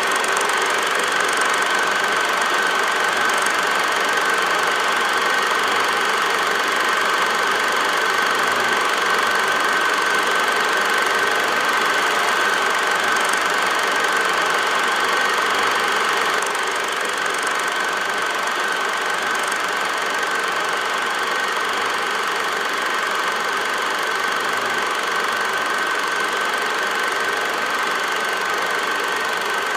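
8mm film projector running: a steady mechanical whir and clatter with a constant high-pitched hum, slightly quieter after about sixteen seconds.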